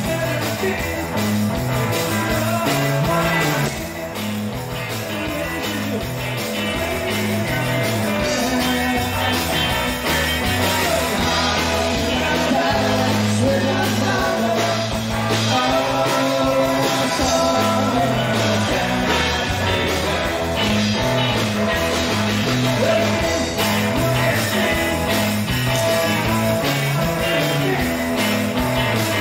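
Live rock band playing an upbeat 1960s-style rock and roll song: electric guitar, bass and drums, with a walking bass line and singing.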